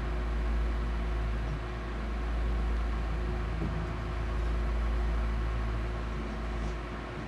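Steady low rumble with a hiss and a faint steady hum, swelling and easing slightly.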